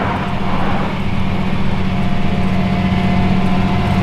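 Flatbed tow truck's engine idling with a steady low hum, with a brief rush of noise in the first second.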